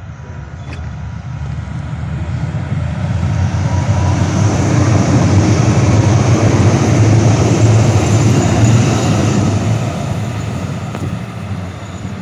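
Calgary Transit CTrain light rail train passing close by on the track: a rumble that builds over a few seconds, is loudest in the middle, then fades as the train goes by.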